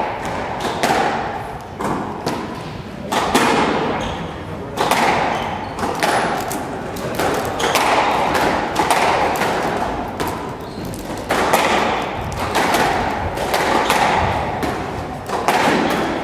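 Squash rally: a ball struck back and forth by rackets, with sharp hits of racket and ball on the walls about once a second, each echoing in the enclosed court.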